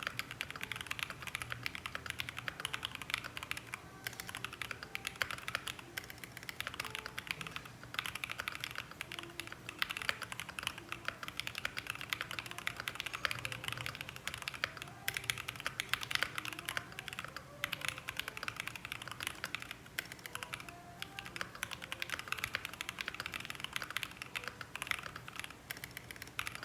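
Fast typing on a Rexus Daxa M61 mechanical keyboard with JWK Ultimate Black linear switches, a brass plate and PBT keycaps. It is a dense run of keystrokes with a few brief pauses.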